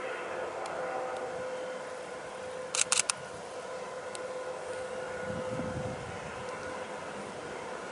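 Steady drone of a 3TE116U diesel locomotive working a freight train at a distance, with a level hum over a noisy haze. About three seconds in come three quick, loud, sharp clicks.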